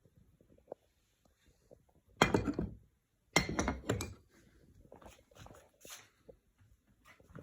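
Handling noises: two louder rattling clunks about two and three and a half seconds in, followed by lighter knocks and clinks. Nothing motor-driven is running.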